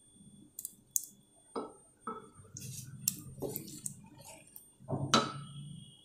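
A wooden spatula stirring thick prawn curry in a pot, with a series of short clicks and knocks against the pot's side, the loudest about five seconds in.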